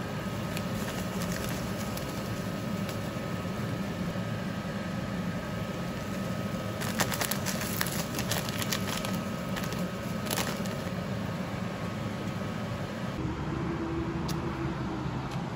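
A pan of pasta, chicken and vegetables cooking on the stove gives a steady hiss and hum. In the middle there is a run of light clicks and rattles as dried herbs are shaken in from a jar. About three seconds before the end the sound changes to a quieter, different background.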